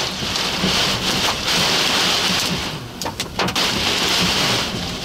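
Wind-driven heavy rain and hail from a microburst pounding on a car's windshield and body, heard from inside the cabin. A dense, steady downpour that eases briefly about three seconds in, with a few sharp strikes.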